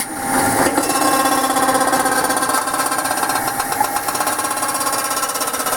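Beko washing machine running hard: a steady motor whine under a fast, even rattling and knocking.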